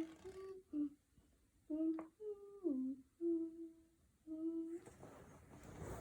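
A person humming a short tune: a string of separate held notes, a couple of them sliding downward, with a short patch of noise near the end.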